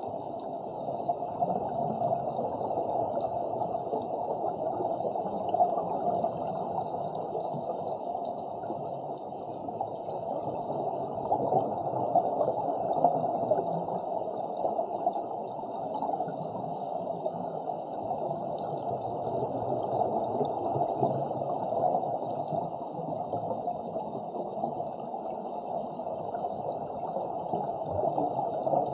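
Muffled, steady underwater water noise picked up through the camera's waterproof housing, with small swells in level but no distinct events.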